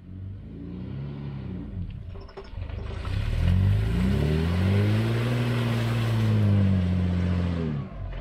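Toyota Land Cruiser 80 series' 4.5-litre straight-six engine pulling through deep mud ruts. A short rev comes about a second in; about three seconds in the revs rise and are held for several seconds under load, with the tyres churning through mud and water, then drop back just before the end.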